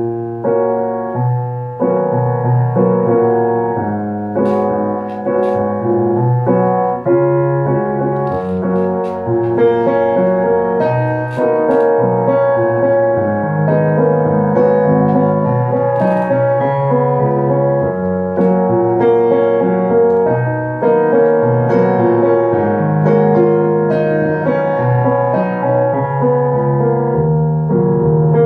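Roland RD-700NX digital stage piano playing a fast, dense solo passage of full chords and runs on a mellow piano voice.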